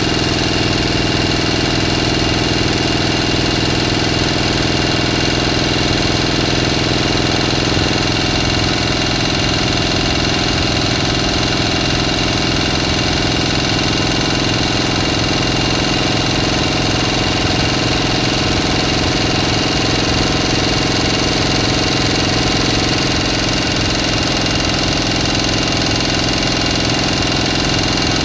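A motor running steadily at an even speed, its pitch and loudness unchanging throughout.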